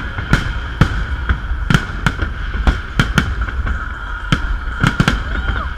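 Fireworks display: about a dozen sharp bangs of bursting shells at irregular intervals, over a steady hiss.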